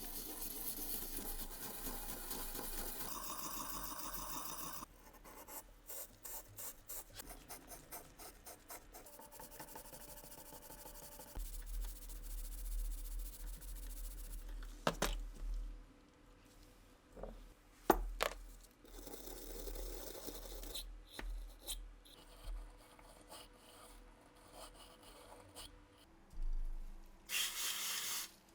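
Hand work on small steel revolver parts: a few seconds of steady rubbing, then a run of quick rubbing or filing strokes, then scattered sharp clicks and knocks of small metal parts, the loudest a single sharp click about eighteen seconds in.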